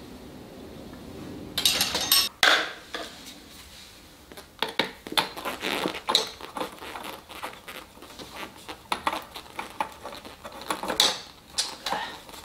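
Irregular clinks and gritty scrapes of spiral compact fluorescent bulbs being screwed into the sockets of a softbox light's multi-bulb holder by gloved hands. There is a louder cluster of clatter about two seconds in.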